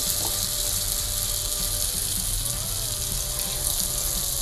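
Pempek adaan (fish and sago balls) deep-frying in hot oil in a wok: a steady, even sizzle.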